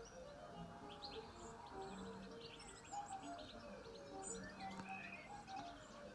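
Garden birds chirping and singing, a busy run of short high calls and trills, over quiet Irish instrumental music with held notes.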